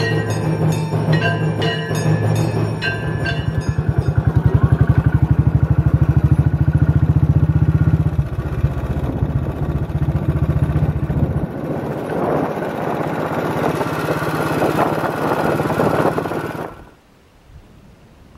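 Ringing bell-like tones for the first few seconds. Then a Royal Enfield single-cylinder motorcycle engine runs with a rapid, even beat while riding. The sound cuts off suddenly near the end, leaving only a faint hiss.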